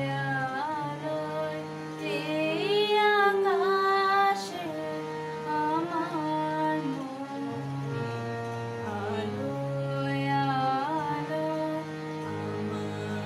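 A woman singing a Bengali song with ornamented, wavering held notes over steady sustained chords from a harmonium. Her voice is loudest about two to four seconds in.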